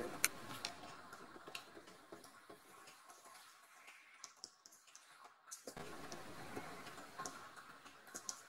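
Faint, scattered clicks and ticks of a tiny kitten's claws tapping on a hard floor as it walks, over low room hiss.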